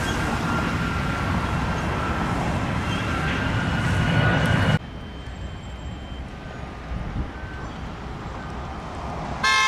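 Road and traffic noise from a car driving along a city street, steady, then dropping suddenly to a quieter hum about halfway through. A short, loud beep sounds near the end.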